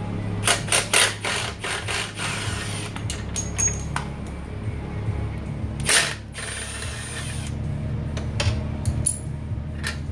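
Metal clinks and knocks of hand tools working on a minibike engine: a quick cluster near the start and one loudest knock about six seconds in, over background music.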